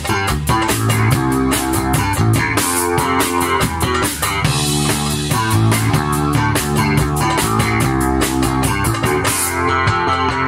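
Live instrumental rock music from a small band: an amplified electric guitar played over a drum kit and hand drum, with a steady, busy beat.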